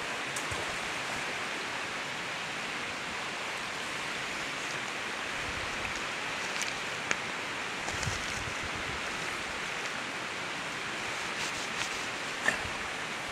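Steady rush of flowing river water, with a couple of brief clicks about halfway through and near the end.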